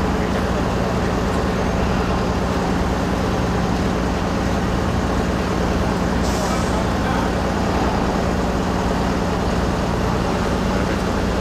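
Heavy diesel engine running steadily at a constant speed, with a short hiss about six seconds in.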